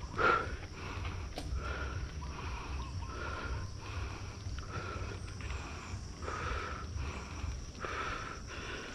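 A cyclist breathing hard and fast while pedalling up a steep mountain-bike climb, a breath about every three quarters of a second, with the sharpest breath right at the start. A low rumble runs underneath.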